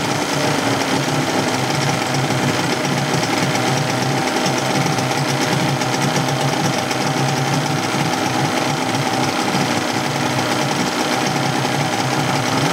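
Suzuki DT-25 two-stroke outboard motor running in a test tank: its speed drops in the first second, holds steady, then rises near the end as the tiller throttle is twisted. The owner judges it not running as smoothly as it should, suspecting a dirty carburettor.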